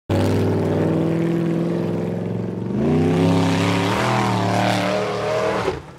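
Formula Offroad buggy's engine running hard at high revs, its pitch climbing about three seconds in as it charges up a steep gravel hill under full throttle, then cutting off suddenly just before the end.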